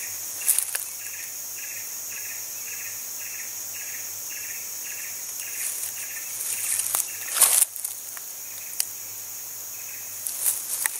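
Forest insects: a steady high-pitched insect drone, with a regular chirp about twice a second that stops about two thirds of the way through. A few brief rustles and knocks break in, the loudest about two thirds of the way through.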